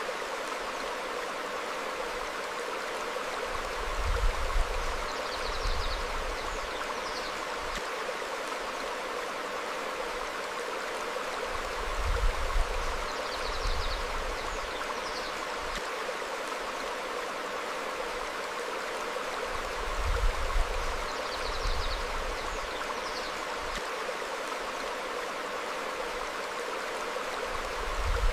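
Stream flowing over rocks: a steady rush of water, with faint short chirps now and then and a low rumble swelling about every eight seconds.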